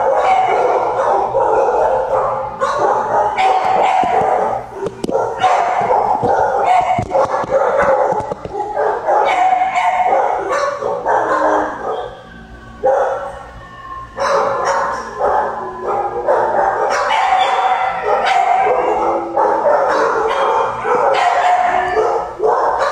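Many kennelled shelter dogs barking at once, a near-continuous overlapping din that eases for a couple of seconds about halfway through.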